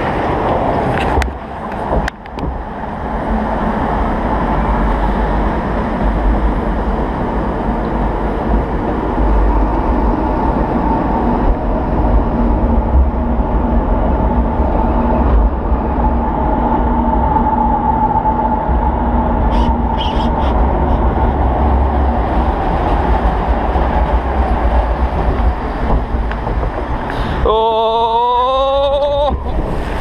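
Log flume ride heard from the boat: a steady rumble of the lift conveyor and running water as the log climbs and floats along the channel. Near the end a rider lets out a rising yell lasting about two seconds as the boat heads down the drop.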